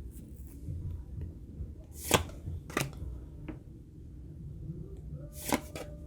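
Pokémon trading cards being handled and slid over one another, with a few sharp card flicks; the loudest comes about two seconds in, others follow shortly after and near the end.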